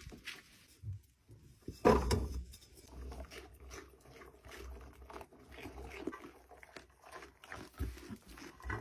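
Goats crunching and chewing broccoli: many short crisp crunches, with one short loud goat call about two seconds in.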